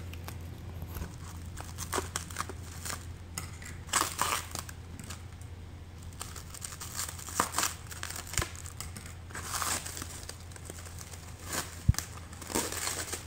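Plastic wrapping and packing material being handled and pulled out of a clear acrylic hopper, crinkling in irregular bursts, with a single sharp knock near the end.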